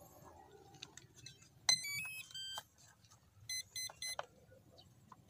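Electronic speed controller of an RC plane's brushless motor playing its power-up tones through the motor: a short run of stepped notes, then a group of quick same-pitch beeps about a second later, the signal that the battery has been connected and the controller is initialising.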